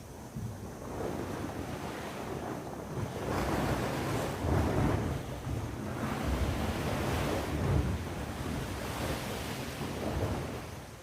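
Sea waves washing in on the shore, one long swell that builds a few seconds in and eases off near the end, with wind rumbling on the microphone.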